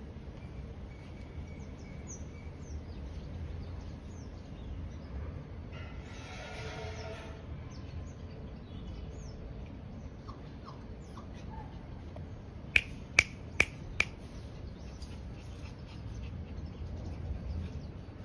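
Four sharp clicks in quick succession, about 0.4 s apart, roughly two-thirds of the way in. Under them run faint chirps of small birds, and a short noisy rush comes about six seconds in.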